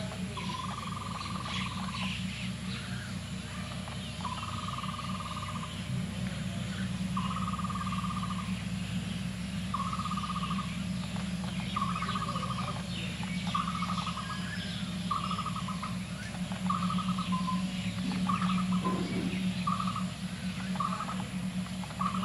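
A bird repeating a trilled call on one steady pitch about a dozen times, each call shorter and coming faster toward the end, over scattered small chirps and a steady low hum.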